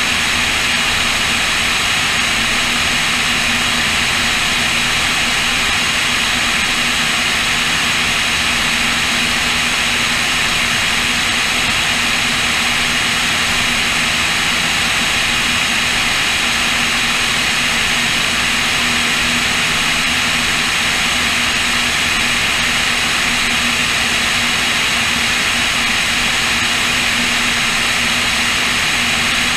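Cessna O-2A in steady cruise: the drone of its two push-pull piston engines and propellers under a heavy, even rush of airflow over the wing-mounted camera.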